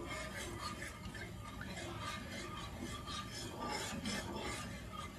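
A utensil stirring warming milk and cream in a saucepan, scraping against the pan in quick repeated strokes.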